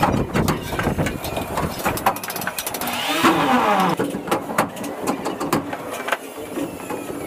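Irregular sharp taps and knocks of a hammer working on the PVC spandrel ceiling panels and their trim. About three seconds in, a passing motor vehicle's engine rises over them and its pitch drops as it goes by.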